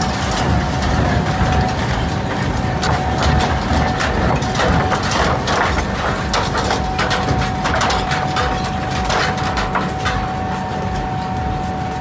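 Doppstadt Inventhor Type 9 shredder running under load, its engine rumbling steadily while the rotor tears through scrap with a continuous run of sharp cracks and snaps. A steady thin whine sits over it throughout.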